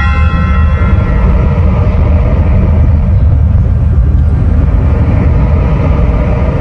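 A loud, steady low rumble, a dark drone in a tense dramatic soundtrack, as the fading tones of a scary music cue die away at the start.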